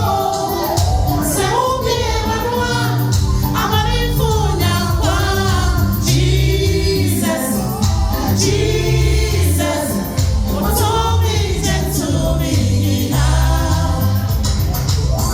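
Gospel song performed live: voices singing sustained, gliding melody lines over band accompaniment with a pulsing bass.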